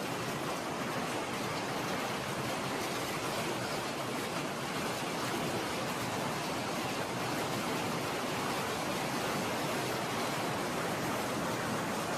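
Heavy hailstorm downpour: countless small impacts blending into a dense, even roar that holds steady throughout.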